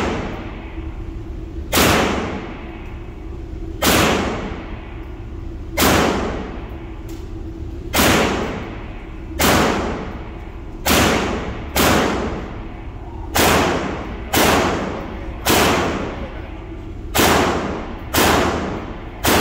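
Gunshots from a pistol-caliber firearm fired one at a time at a slow, steady pace, about thirteen shots, roughly one every second to two seconds. Each shot echoes off the concrete walls of an indoor range.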